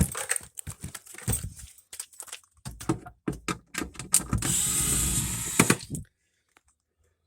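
Containers and food items clattering and knocking as they are handled out of a refrigerator, then a loud rushing noise for about a second and a half that stops abruptly.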